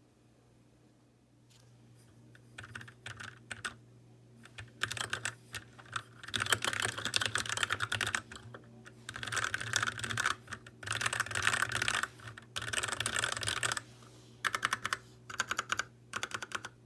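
Typing on an RK61 mechanical keyboard: fast runs of key clicks in bursts of one to two seconds, starting a couple of seconds in.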